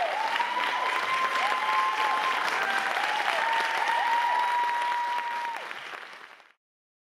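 Audience applauding and cheering, with long high-pitched calls held over the clapping. The sound fades out near the end.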